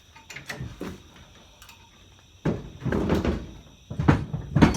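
Steel receiver hitch being handled and set down: a couple of light knocks, a longer scraping clunk about halfway through, then two sharp metal knocks near the end, the last the loudest.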